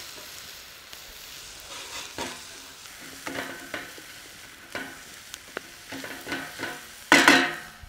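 Diced shallots and mushrooms sizzling in butter in a fry pan. They are stirred in a series of short scraping strokes, with the loudest, longest scrape about seven seconds in.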